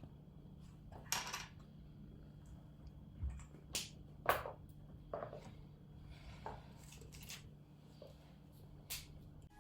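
Quiet room with a steady low hum, broken by scattered soft clicks, taps and short rustles, about a dozen in all, the loudest a little past one second and around four seconds in.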